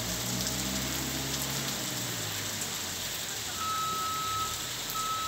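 Steady rain falling on a street, with a low engine hum in the first couple of seconds. About three and a half seconds in, a vehicle's reversing alarm starts, sounding long beeps about once a second.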